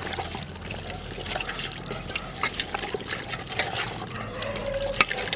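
Wet squelching and squishing of raw chicken pieces being kneaded by hand in a wet spice paste in a metal bowl, with many irregular small clicks as the pieces are turned.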